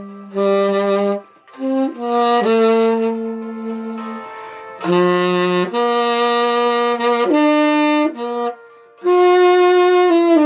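Saxophone playing a slow melody in held notes of a second or two each, with short breaks between phrases.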